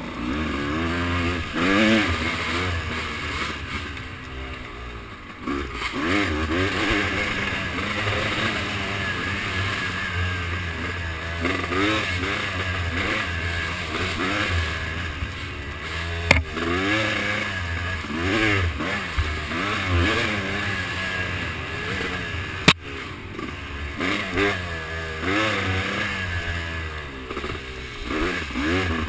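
Engine of an off-road trail vehicle running under riding load, the revs rising and falling again and again as the throttle is worked. Two sharp knocks stand out, about sixteen and twenty-three seconds in.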